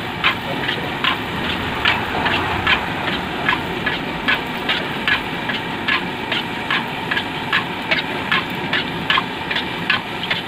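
Golgappe puris sizzling as they deep-fry in hot oil in a large iron kadhai over a gas burner, which runs with a steady low rumble. A steady ticking about three times a second runs through it.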